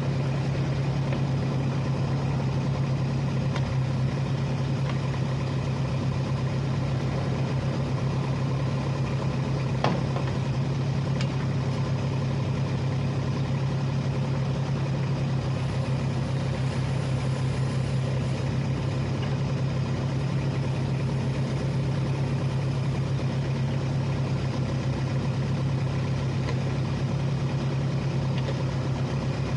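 Kubota RX-203S compact excavator's diesel engine running at a steady, even speed while the boom and arm are worked. A single sharp click sounds about ten seconds in.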